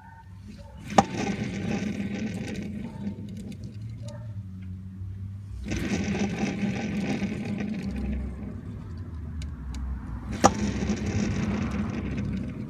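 Mechanical whirring in three spells a few seconds long, the first and last each starting with a sharp click.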